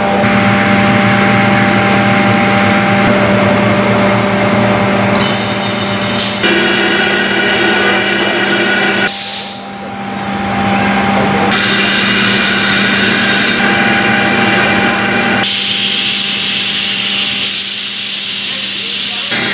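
Steady mechanical hum with several held tones over a hiss, from the running machinery of a newly installed oxygen-generating plant. It changes character abruptly several times.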